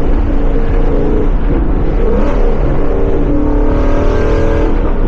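2017 Ford Mustang GT's 5.0 Coyote V8 through a Corsa Xtreme cat-back exhaust during a downshift: a quick rev blip about two seconds in, then the engine pulls again under throttle.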